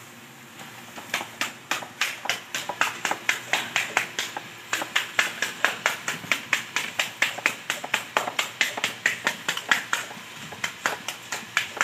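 A foam sponge patted quickly on a wet, freshly laid pebble-and-cement surface, making wet pats about five a second that start about a second in. This is the sponging that wipes the cement film off to bring up the pebbles.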